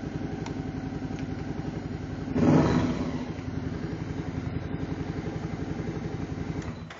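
Suzuki SFV650 Gladius's 645 cc V-twin idling with an even, throbbing beat through a decat pipe fitted in place of the catalytic converter, with a short rev about two and a half seconds in. The sound cuts off suddenly near the end.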